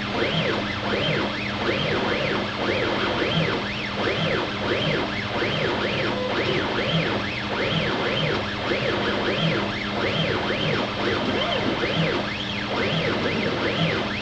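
CNC router's Vexta stepper motors whining in rising-and-falling pitch sweeps about twice a second as the axes speed up and slow down through the dovetail tails program cut in the air, over a steady low hum.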